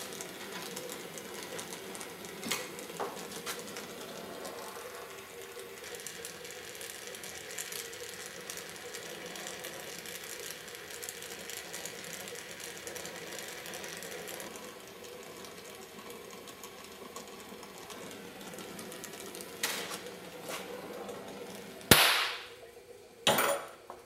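Oxy-acetylene torch flame hissing steadily with a fast, fine crackle while bronze-welding a steel U-joint to a shifter rod tube, its acetylene carrying liquid flux. Near the end there are two loud, sudden sounds as the work stops.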